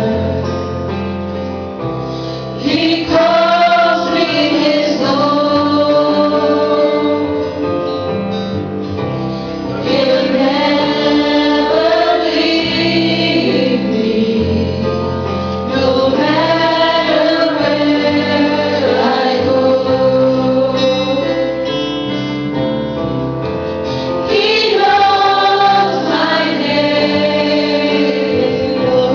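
Worship music: a group of voices singing a song together over sustained instrumental accompaniment.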